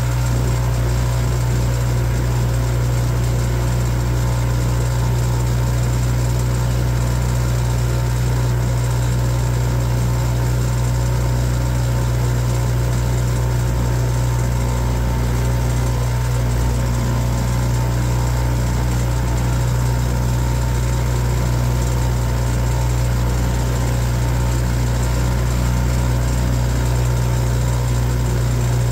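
Boat engine running steadily at a constant speed, a low even drone.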